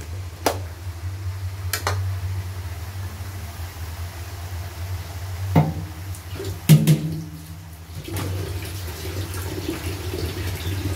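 Leafy greens cooking in a steel wok with a steady wet sizzle over a low hum. Light clicks come in the first two seconds, then two louder metal knocks with a short ring about halfway through.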